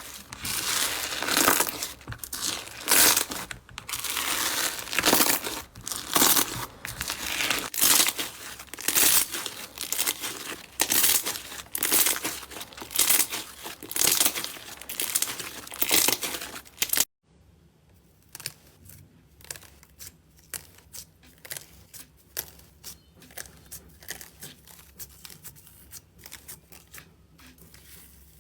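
Slime being squeezed and pressed by hand, crackling and crinkling in repeated loud bursts about once a second. About 17 seconds in it cuts sharply to a much quieter stretch of small clicks and pops.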